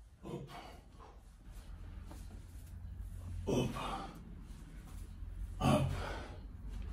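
A man breathing hard through barbell back squats: three short, forceful exhalations, partly voiced, about a second, three and a half and nearly six seconds in, the last the loudest, over a steady low hum.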